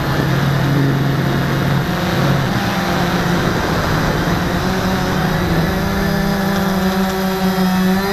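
CX-20 Cheerson Auto Pathfinder quadcopter's electric motors and propellers buzzing, picked up close by the Mobius action camera mounted on it, with a hiss of airflow. The pitch shifts up and down in small steps as the motor speeds change.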